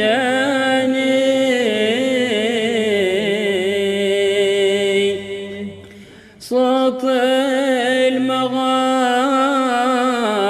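A voice singing an Arabic devotional qasida, drawing each word out into long, ornamented held notes that waver and slide in pitch. The singing dips and breaks off briefly about six seconds in, then resumes.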